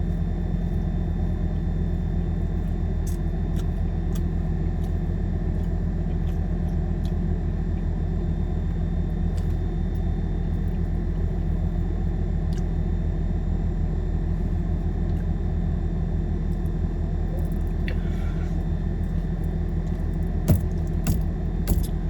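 Steady low hum of a car engine idling. A few sharp clicks come near the end.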